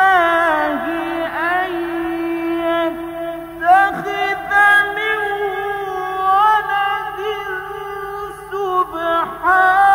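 Male Quran reciter chanting in the melodic mujawwad style, holding long notes and ornamenting them with sliding, wavering pitch, with two brief breaks.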